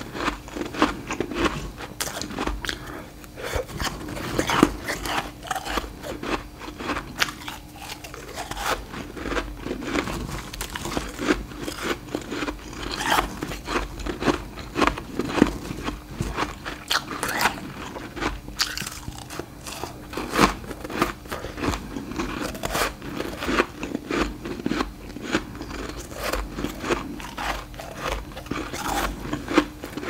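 Refrozen humidifier frost being bitten and chewed: a dense, continuous run of crisp, sharp crunches close to the microphone.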